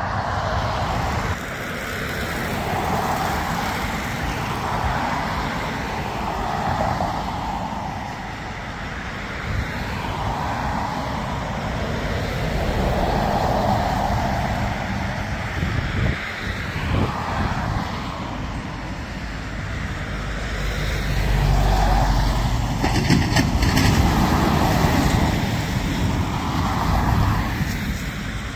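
Steady outdoor engine and traffic rumble that swells and fades every couple of seconds, growing louder with a deeper rumble about three quarters of the way in.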